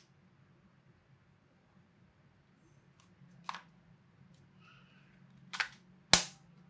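Hard plastic clicks from handling a three-slot action-camera battery charging case and its batteries: three sharp clicks about three and a half, five and a half and six seconds in, the last the loudest.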